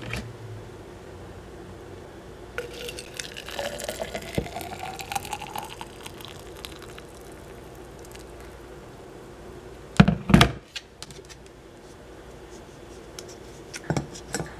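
Freshly boiled water poured from a kettle into a mug, the pitch rising steadily as the mug fills. About ten seconds in, two sharp knocks.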